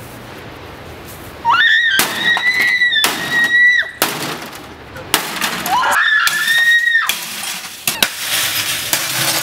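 A CRT television being smashed by hand and foot: repeated sharp blows cracking its plastic casing, with glass breaking. Over the blows come two long, high-pitched screams from a woman, each rising sharply at the start.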